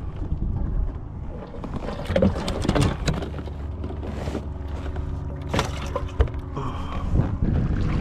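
Scattered knocks and clatter of handling on a fishing kayak, a few sharp hits about two, three, five and six seconds in, over a steady low rumble.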